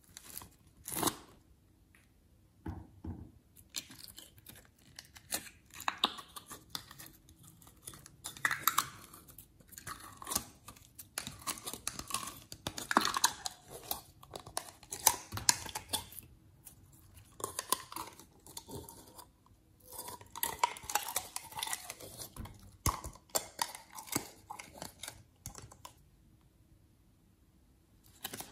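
Slime being squeezed out of plastic bottles and worked by hand in a plastic bowl: irregular sticky squelches, crackles and small pops, with a short quiet pause near the end.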